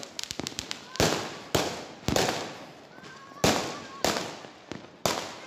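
Fireworks and firecrackers going off: a quick string of small cracks in the first half-second, then about six loud bangs spaced half a second to over a second apart, each trailing off in an echoing tail.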